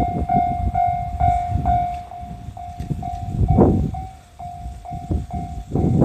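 Japanese level-crossing warning bell dinging steadily, a little over two dings a second. Under it, a JR Central 311 series electric train's wheels rumble and clatter over the rails as it passes through the crossing.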